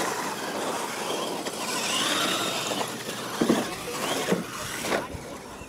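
Radio-controlled monster trucks racing across a dirt course: motor whine rising and falling over the hiss of tyres on loose dirt, with a few short thumps in the second half.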